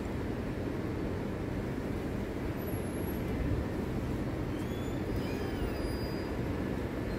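Steady low rumble of outdoor city street noise, with a few faint high chirps in the middle.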